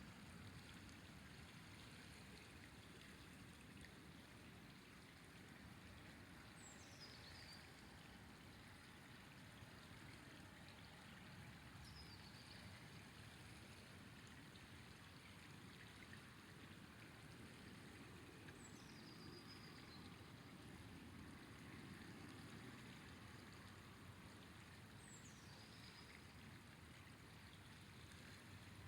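Faint, steady rush of a flowing river. A thin, high whistle that slides downward sounds about five times, roughly every six seconds.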